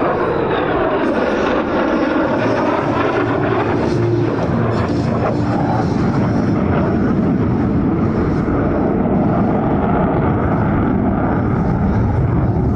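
F-35A Lightning II jet, its Pratt & Whitney F135 afterburning turbofan running loud and steady as it flies past, with a sweeping, shifting tone in the first few seconds.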